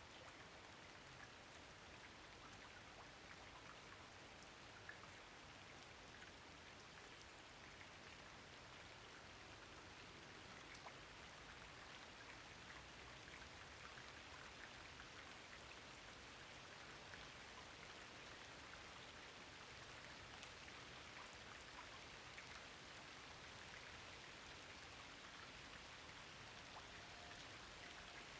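Rain falling steadily: a soft, even hiss of many small drops with scattered sharper drips, growing slightly louder toward the end.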